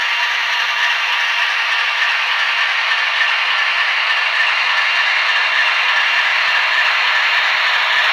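TT-scale model train running on the layout track, giving a steady, even rattle and clatter of small wheels and mechanism.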